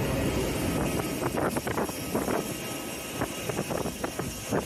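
Jet engines of a taxiing Fuji Dream Airlines Embraer regional jet, a steady rush with a thin high whine running through it. The low rumble eases after about a second.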